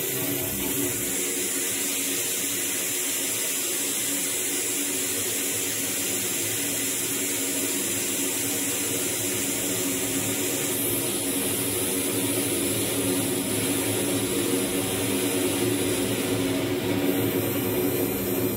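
Electronic noise drone from a frakMSP synthesis patch: a steady rushing hiss over several held low tones. The high hiss changes about eleven seconds in and again near the end.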